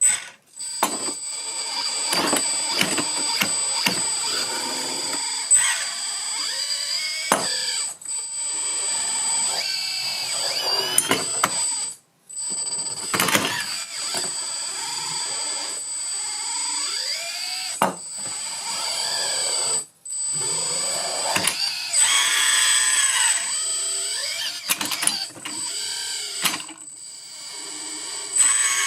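Hydraulic RC excavator running: a steady high electric pump whine whose pitch slides up and down as the hydraulics take load, with clicking and clattering from the metal parts. The sound cuts off abruptly a few times.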